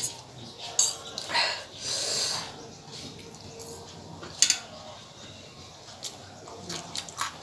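Cutlery clicking against a plate a few times while someone eats. About a second and a half in there is sniffing and a long hissing breath, from the burn of very hot chilli food.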